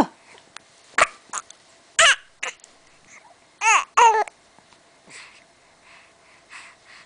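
Baby hiccuping and babbling: a few short, sharp hics in the first half, then two brief pitched vocal sounds about halfway through, and faint breathy sounds after.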